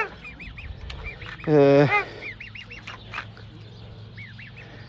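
A cygnet peeping repeatedly in short, high, arching whistles, and about one and a half seconds in a single loud, nasal honk about half a second long from an adult bird.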